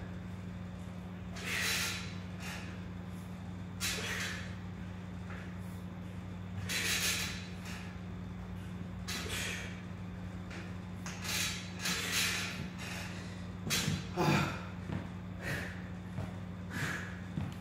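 A man breathing hard with pull-up effort: short forceful exhalations every two to three seconds, coming closer together and more ragged in the second half. A steady low hum sits underneath.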